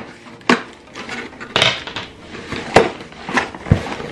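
Packaging and small items being handled and set down: about five sharp knocks and clatters, with a short rustle of packaging about a second and a half in.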